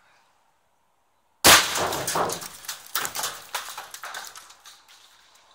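An improvised large-bore tube shotgun, charged with a car airbag inflator charge and loaded with gravel, fires with one sudden loud blast about a second and a half in. The blast is followed by scattered clinks and knocks that fade over about four seconds.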